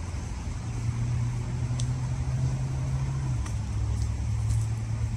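Steady low rumble of road traffic, with a deeper engine note that drops slightly about three seconds in.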